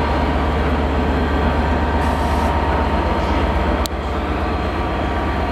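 Hitachi Class 800-series Intercity Express Train running slowly into the station platform, a steady low drone with a faint steady tone above it. One brief sharp click a little under four seconds in.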